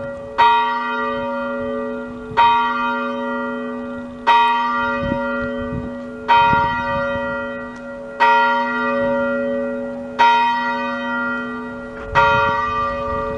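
A single church bell being rung, struck about once every two seconds, seven strokes in all. Each stroke rings on and overlaps the next over a steady low hum.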